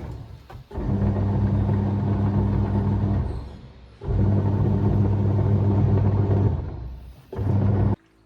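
Semi-automatic washing machine's wash motor and gearbox running with a steady electric hum. The hum stops and starts in runs of about two to three seconds, winding down in each short pause, and cuts off just before the end.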